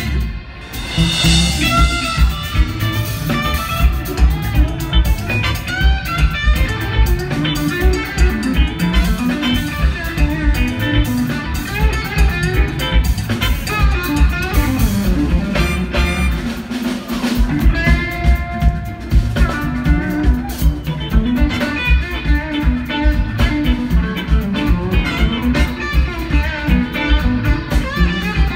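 Live funk band playing loudly: electric guitars over bass and a drum kit keeping a steady beat. The music drops briefly about half a second in.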